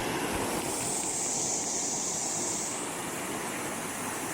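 Small waterfall pouring into a stream: a steady rushing of falling water.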